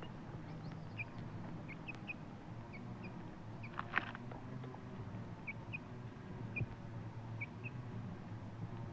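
Bantam chicken giving short, high peeps, often in pairs, about once a second, with one louder call about four seconds in, over a low steady hum.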